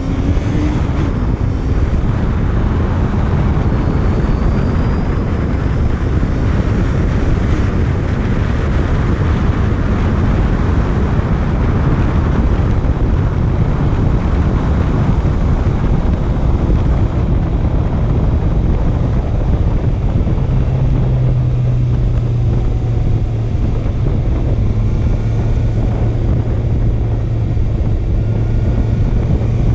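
Honda CB650F inline-four engine running under way with heavy wind rush on the microphone; a rev climb ends right at the start, and from about two-thirds of the way in the engine holds a steady note at a constant speed.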